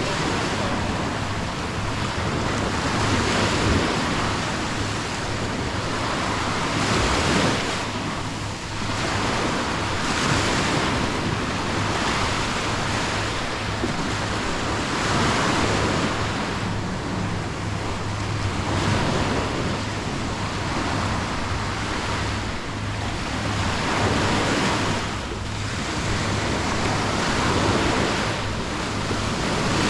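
Surf on the beach: small waves breaking and washing up the shore, swelling every few seconds, with some wind noise on the microphone.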